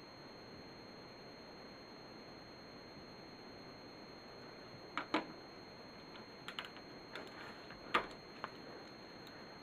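Plastic clicks and taps of LEGO minifigures and pieces being handled and set down on a LEGO baseplate: a pair of sharp clicks about five seconds in, then a scatter of lighter clicks, with another sharp one near the end.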